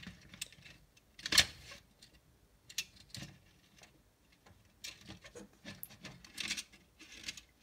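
Hands handling a plastic model coach body and red and black wire on a cutting mat: scattered light clicks, taps and rustles, the sharpest a click about a second and a half in.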